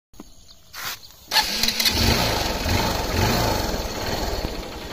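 Motorcycle engine starting: a short burst just under a second in, then the engine catches abruptly about a second and a half in and runs, its pitch rising and falling a little with the throttle.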